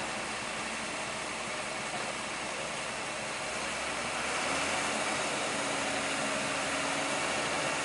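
Loaded sand dump truck's diesel engine running steadily, a little louder from about four and a half seconds in.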